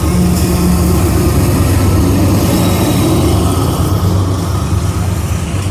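Union Pacific diesel locomotive, running mid-train among covered hopper cars, passing close by: a steady engine hum over the noise of steel wheels rolling on the rail.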